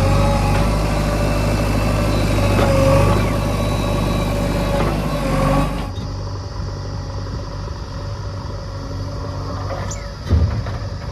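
Heavy diesel engine running steadily. About halfway through the sound changes abruptly to a quieter, duller engine note, and a single thump comes near the end.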